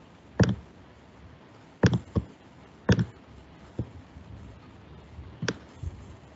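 Computer mouse clicks: about seven short, sharp clicks at irregular intervals, including a quick pair about two seconds in.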